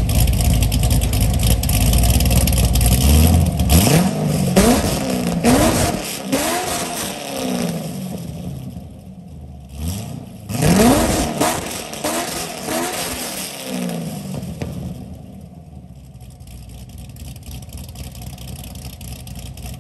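A 2012 Corvette Grand Sport's cammed LS3 V8 (BTR Stage 3 cam, ported heads, Kooks headers, NPP exhaust) being revved in place. It runs loud and deep at first, then takes two runs of quick throttle blips, each rising and falling in pitch, before settling back to idle near the end.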